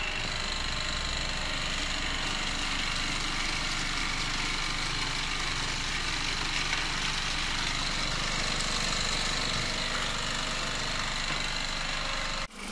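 UF600 vibrating sieve's vibration motor running with a steady mechanical hum and rattle, while water is poured onto the screen and splashes out of the outlet spout into a basin. The sound drops out briefly near the end.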